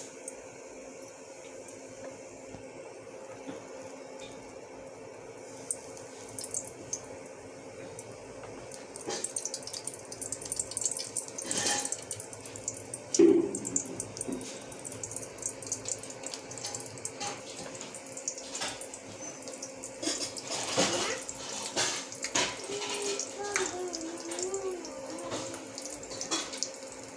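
Urad-dal batter fritters deep-frying in hot oil in an aluminium pan: sizzling and crackling that becomes busier and louder after about nine seconds as more batter goes in. One louder knock comes about halfway through.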